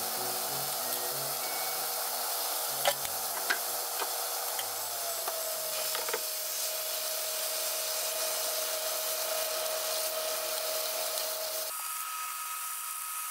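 Pork and greens sizzling in a frying pan with a miso sauce, stirred with wooden chopsticks, with a few sharp clicks of the chopsticks against the pan.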